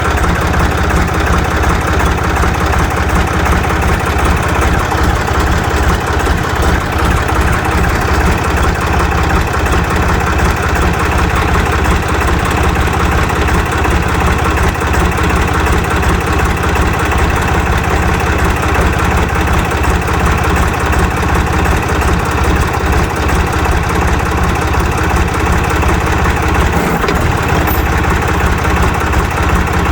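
Ditch Witch trencher's three-cylinder air-cooled Deutz diesel running steadily, a fast even firing beat with no change in speed.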